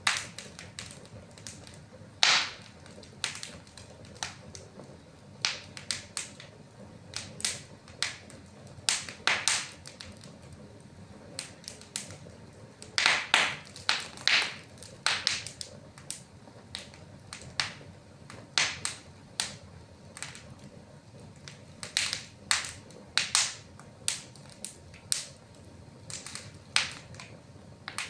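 Fire crackling in a fireplace: irregular sharp pops and snaps, a few louder cracks, over a low steady hiss.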